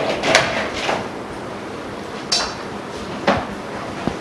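Four separate sharp clicks and knocks from cables, plugs and connectors being handled while power wiring is hooked up, one of them a short metallic clink.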